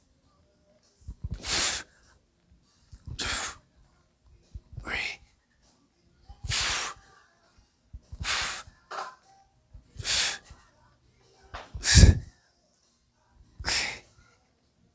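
Forceful, sharp breaths blown out through the mouth, one with each pull of a barbell bent-over row, about every second and a half to two seconds. The loudest comes near the end and is deeper and heavier.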